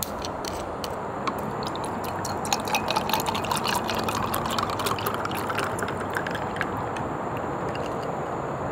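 A plastic screw cap is twisted off a bottle with a few clicks. Then chilled coffee is poured from the large plastic bottle into a glass of ice, a splashing pour with ice crackling from about two and a half seconds in to six and a half, over steady background noise.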